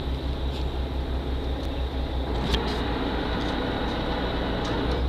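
Tour boat's engine running steadily, a low pulsing drone, with a sharp click about halfway through.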